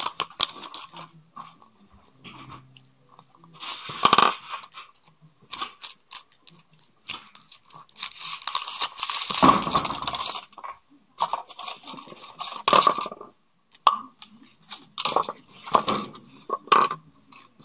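Foil wrapper of a Kinder Surprise chocolate egg crinkling in irregular bursts as it is unwrapped, with small clicks and snaps of handling; the longest burst comes about halfway through.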